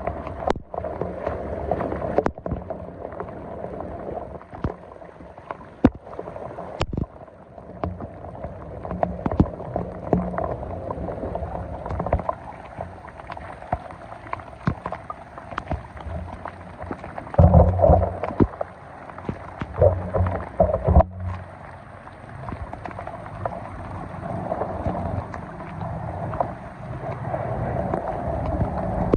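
Water sloshing and gurgling, with scattered sharp knocks and splashes and a louder spell of splashing a little past halfway.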